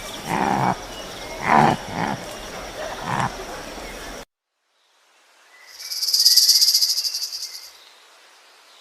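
Four short animal calls, then after a sudden cut a high, fast-pulsed insect trill that swells and fades.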